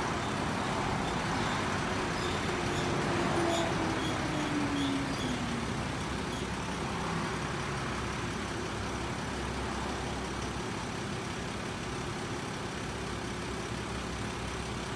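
Ambulance running, a steady vehicle drone, with one tone gliding down in pitch about three seconds in.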